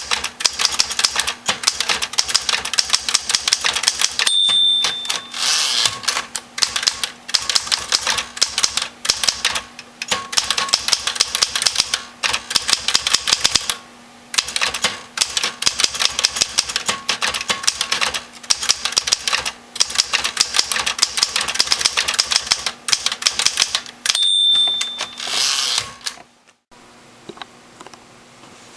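Smith-Corona manual typewriter being typed on, fast irregular key strikes. Its margin bell rings twice, about 4 seconds in and about 24 seconds in, each ring followed by a short rattle of the carriage being returned. Typing stops near the end.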